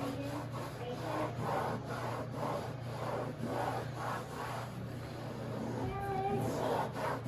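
Rhythmic back-and-forth scraping of softened spray adhesive on a fiberglass boat's non-skid deck, about two to three strokes a second. A child's voice comes in near the end.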